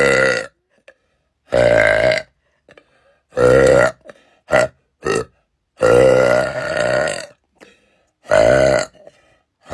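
A young woman burping loudly, one burp after another with short silences between: about six, including two short ones close together midway and a longer drawn-out burp about six seconds in.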